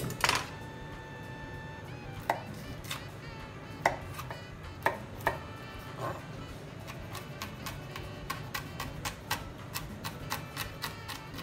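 Chef's knife cutting a halved red chili pepper on a plastic cutting board: a metallic clink with a short ringing tone near the start, a few separate cuts, then quicker steady chopping, about three knife taps a second, in the second half.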